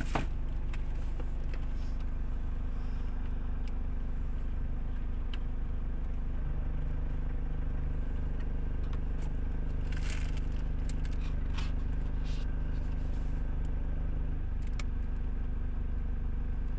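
A steady low hum, with a few faint scrapes and taps as a cardboard phone box is handled and its lid slid off.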